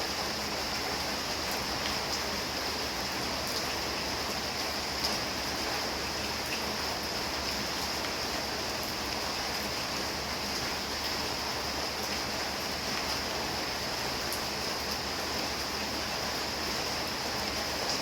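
Heavy rain falling steadily: an even hiss with a few faint, sharp drop ticks.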